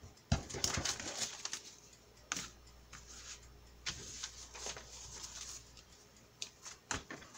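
Loose sheets of paper being handled, rustled and slid against each other, with sharp crinkles and light taps as pages are gathered and folded into a journal signature.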